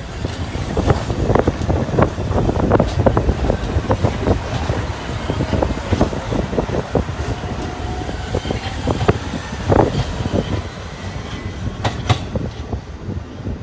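R46 subway train pulling away, its wheels clicking and clattering over the rail joints as the cars pass. The rumble and clicking grow softer as the last car draws off down the track.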